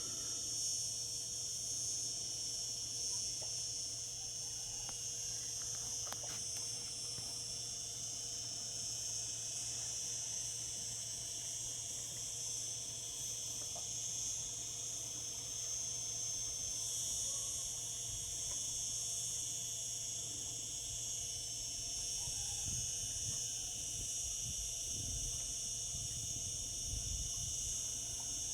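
Cicadas singing in a continuous, steady high-pitched drone.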